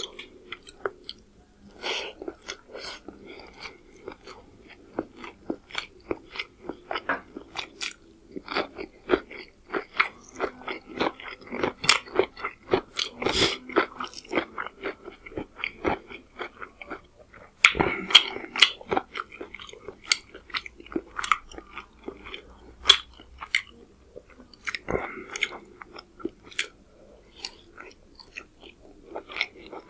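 Close-miked eating sounds: irregular wet chewing, smacking and crunching of a mouthful of chicken curry and pulao rice, with fingers squishing and mixing rice and gravy on the plate.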